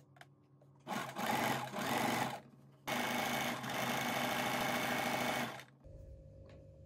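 Electric sewing machine stitching in two runs, a short one of about a second and a half and a longer one of nearly three seconds, then stopping. A low steady hum follows.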